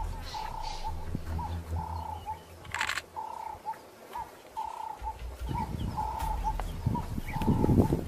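Doves cooing: a steady run of short, evenly spaced coos, about two every second. A low rumble comes in during the second half, and a brief sharp noise is heard a little under three seconds in.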